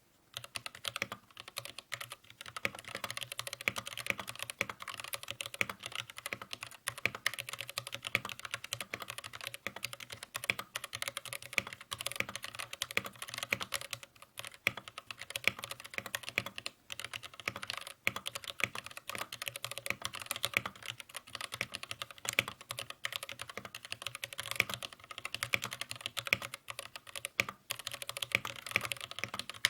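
Continuous fast typing on a mechanical keyboard with Gateron Red linear switches and PBT keycaps: a dense run of keystroke clacks from about half a second in. A faint steady hiss lies underneath.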